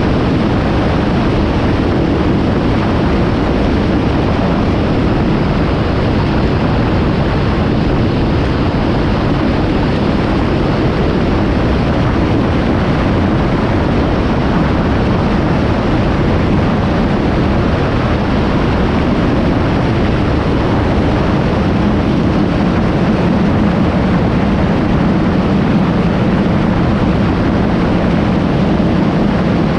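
Kawasaki Z750 motorcycle running at road speed, its inline-four engine droning steadily under heavy wind rush on the microphone. The engine note grows a little stronger in the last third.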